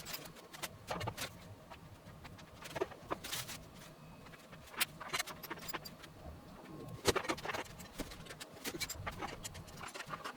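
Scattered light clicks and knocks of parts and tools being handled during table-saw assembly, with a sharper clack about 7 seconds in.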